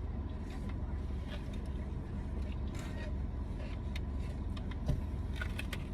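Steady low rumble of a vehicle, with a few faint clicks and rustles.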